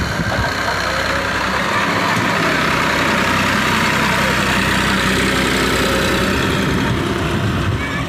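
TAFE tractor's diesel engine running steadily while it pulls a box leveller through soft ploughed soil. It grows louder through the middle as the tractor passes close by.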